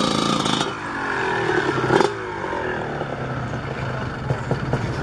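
Motocross bike engines running and revving, a rev dropping away about two seconds in, with the sound changing abruptly at cuts between shots.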